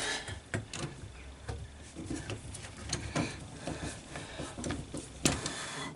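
Handling noise: scattered small clicks, knocks and rustles of equipment being moved about, with one sharper click about five seconds in.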